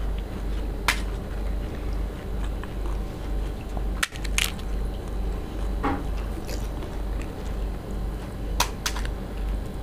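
Crisp fried pani puri (fuchka) shells cracking as they are poked open and bitten, with chewing in between: sharp cracks about a second in, a cluster about four seconds in and a pair near the end, over a steady low hum.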